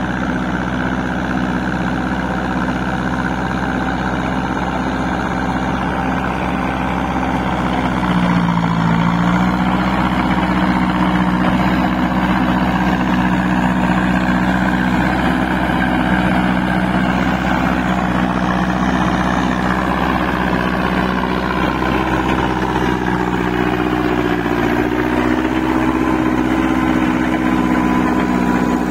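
Massey Ferguson 185 tractor's four-cylinder diesel engine running steadily under load while pulling a rotary tiller through a flooded paddy on paddle-track wheels. Its note dips and recovers about eight seconds in and shifts again near the end.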